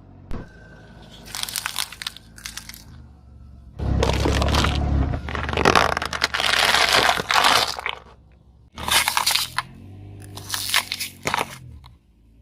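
Crackers being crushed under a car, crunching and crackling in about five bursts of one to two seconds each, with a low rumble under the burst about four seconds in.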